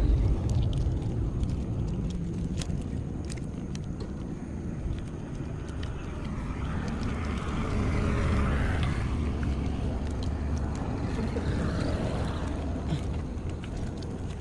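Small fish being picked up by hand from wet, muddy ground, with scattered light wet clicks and slaps over a steady low rumble.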